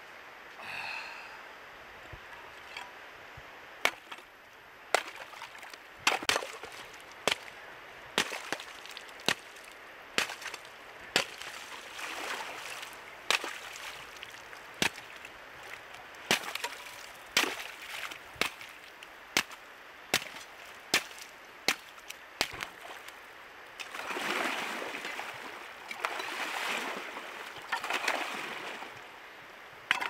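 An axe chopping lake ice: sharp cracks of the blade striking the ice, roughly one a second, with water splashing after some strokes. Near the end, a few seconds of water sloshing and splashing as someone moves in the icy water.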